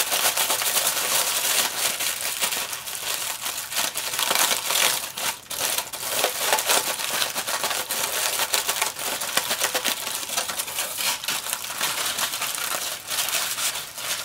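Kitchen aluminum foil being scrunched up by hand: a dense, continuous crackling and crinkling that dips briefly about five seconds in.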